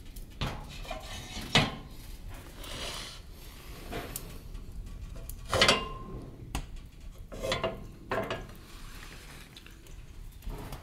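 Metal clanks and scrapes from a steel wood-burning stove being handled, several separate knocks, one about halfway through leaving a short metallic ring.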